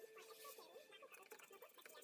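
Near silence: faint room tone with a few faint short chirps and ticks.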